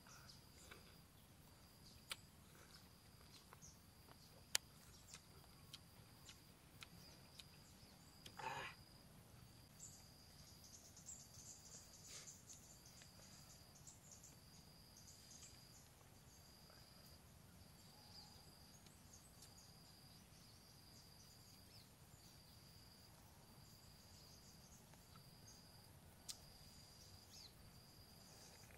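Faint insect chirping in an even pulse, about one chirp a second, over quiet outdoor ambience. A few sharp clicks and one brief louder noise about eight seconds in.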